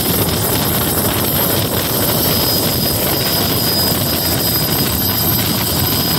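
Bell 206 helicopter's turbine engine and main rotor running steadily at flight power as it settles onto the snow, with a high, steady turbine whine over the rotor noise.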